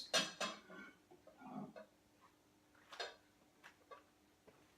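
A few faint clicks and knocks of kitchen handling, likely the hot bowl and microwave being handled with oven mitts, scattered over a quiet background with a faint steady low hum.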